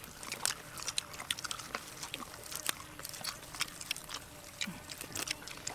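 People eating crispy batter-fried chicken legs with fresh herbs: irregular crisp clicks and crackles of chewing and tearing the fried pieces and snapping herb stems.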